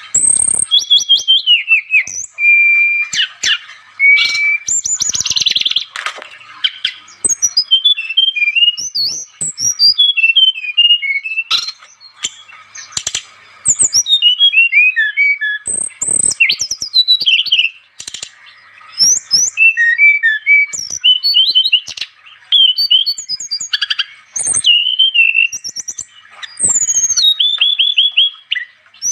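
An SRDC (sikatan rimba dada coklat) songbird singing a loud, rapid, varied song of whistles, chirps and downward-sliding notes, with short pauses between bouts.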